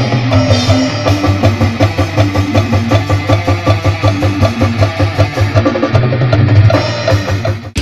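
Drum-led passage of a metal song: fast, busy drum-kit playing with heavy kick drum and low bass. The music cuts out abruptly just before the end.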